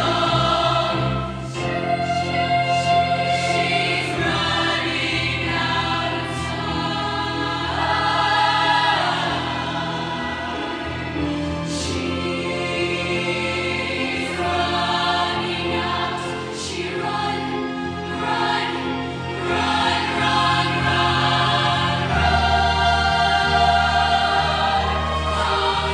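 Show choir singing a ballad: many voices in harmony over sustained low accompanying notes.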